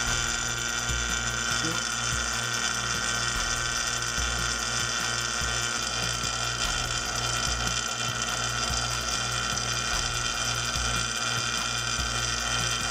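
Background music with a steady beat over the steady running of a rotary-vane vacuum pump, pulling vacuum on a resin-infusion bag.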